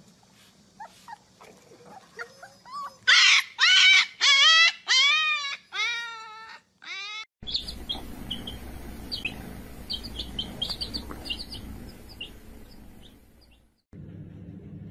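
Husky puppies howling: fainter whines build into a run of loud rising-and-falling cries about three to seven seconds in. After a cut, baby chicks peep in short high cheeps over a low steady hum.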